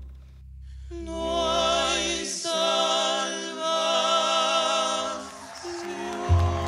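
Male vocal trio singing a bolero in close harmony, with guitar accompaniment, holding a long chord with vibrato from about a second in, then moving to lower sustained notes near the end.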